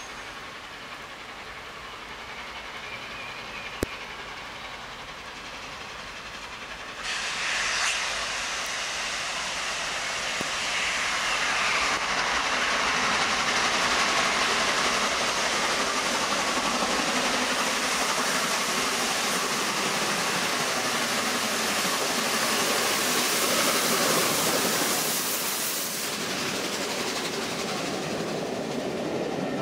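LNER A1 Pacific steam locomotive 60163 Tornado, a three-cylinder 4-6-2, accelerating hard with a heavy train. Its exhaust and steam come up suddenly about seven seconds in and stay loud as the engine draws near and passes. Near the end the level eases as the Pullman coaches roll by with wheel clatter.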